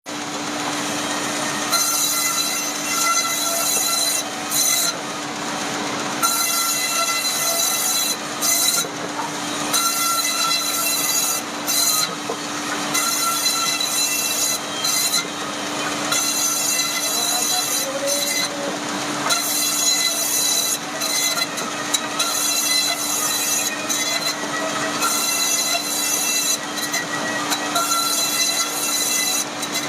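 Powered woodworking machine running on rubberwood, with a steady motor hum under a high whine from the cutting. The whine breaks off briefly every second or two between cuts or passes.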